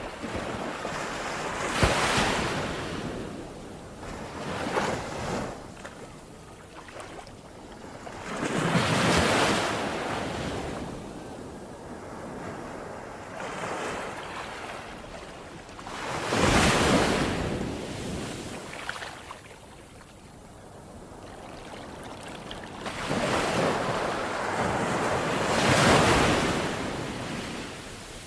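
Ocean waves washing in, a steady wash of surf with swells that rise and fall every few seconds; the biggest come about two seconds in, near the start of the second third, past the middle, and near the end.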